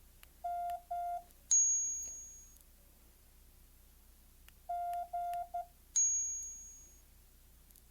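Morse code practice tones from a phone app: a steady beep sounding two dashes, then a bright high chime that fades away; a few seconds later dash-dash-dot, again followed by the chime. The patterns are the letters M and G.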